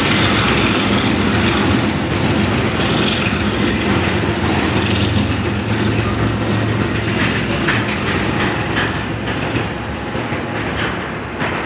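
Union Pacific double-stack container train's well cars rolling past: a steady rumble of steel wheels on the rails, with sharp wheel clicks scattered through the second half.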